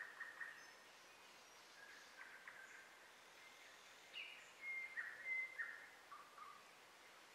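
Wild birds singing outdoors: scattered short chirps and whistled notes over faint background hiss, with a busier, louder phrase about four to six seconds in.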